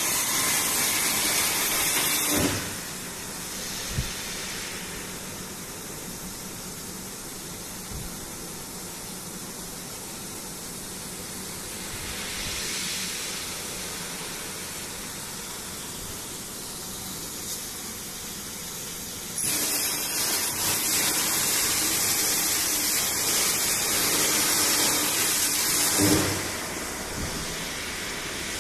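Plasma cutting torch on a CNC plasma cutter, hissing loudly with a crackle while it cuts. It runs for the first couple of seconds, drops to a fainter steady noise for a long stretch, then hisses loudly again for about six seconds near the end.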